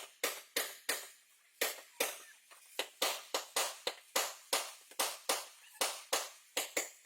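A hammer striking car body sheet metal over and over, about two to three sharp blows a second at an uneven pace, as in panel beating out collision damage.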